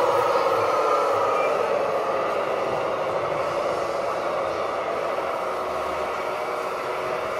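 A radio-controlled model vehicle running: a steady mechanical whine with several overtones that slowly drops in pitch and gets a little quieter.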